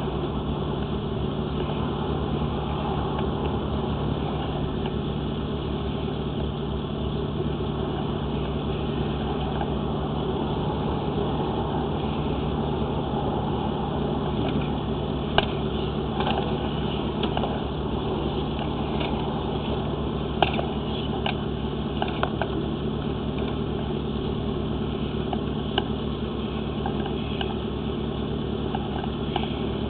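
Steady mechanical hum with a low drone, broken by a few sharp clicks about halfway through.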